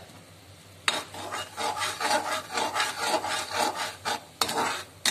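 Perforated metal spoon scraping and stirring melting jaggery syrup around a metal kadhai, quick repeated rasping strokes. A sharp knock comes about a second in and another near the end.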